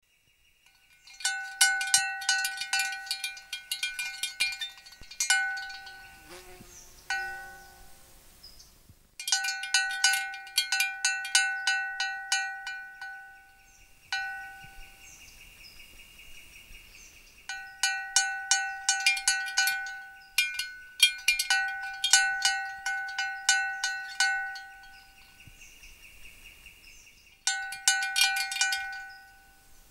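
A small bell rung in four irregular bursts of rapid clapper strikes, every strike on the same high note, with short pauses between the bursts.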